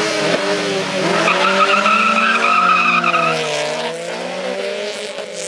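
Two cars launching hard from a standing start, their engines revving high. The tyres squeal for about two seconds, starting about a second in. The engine sound fades as the cars pull away near the end.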